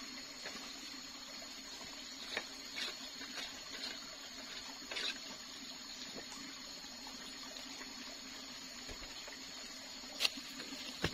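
Steady watery hiss with scattered light clicks and knocks of cooking at a saucepan over a wood fire; a sharper knock about ten seconds in as chopped taro is tipped into the pan.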